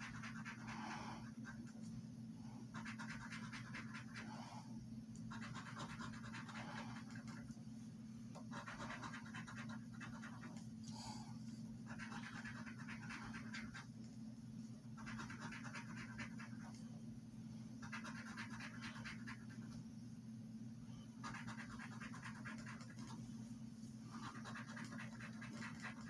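A coin scraping the coating off a paper scratch-off lottery ticket, in spells of rapid scratching a second or two long with short pauses between them. A steady low hum runs underneath.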